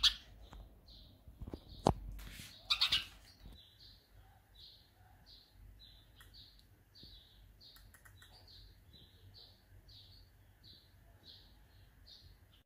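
House sparrow chirping steadily: short chirps at about two a second, starting a few seconds in. A few sharp knocks come in the first three seconds.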